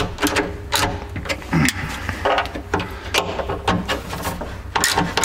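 Hand ratchet clicking in short irregular runs as the bolts holding a jet ski's pump midshaft housing are checked for tightness. A steady low hum runs underneath.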